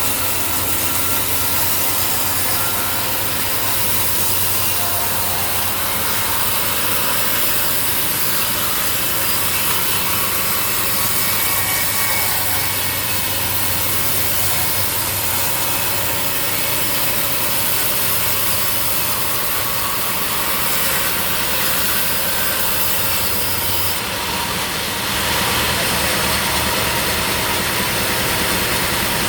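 Sawmill saw cutting through a log with its engine running steadily; the sound shifts about 24 seconds in.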